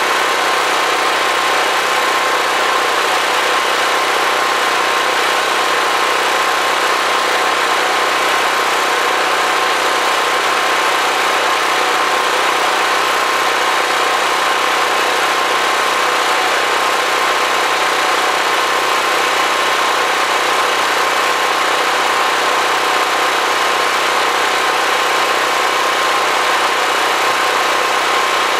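Generator engine running loudly and steadily: a constant drone with a thin, steady whine over it.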